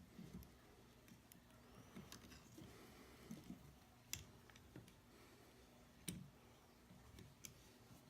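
Faint, sparse clicks and light knocks of gun parts being handled over a low hum, with a few sharper clicks about two, four and six seconds in.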